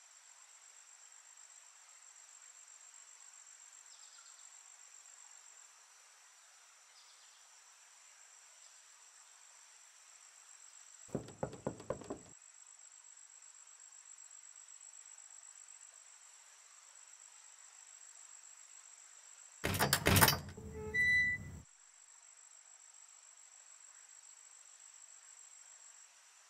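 Crickets chirring steadily. About eleven seconds in come four quick knocks on a door, and around twenty seconds in a louder clatter of knocks and rattles as the door is opened.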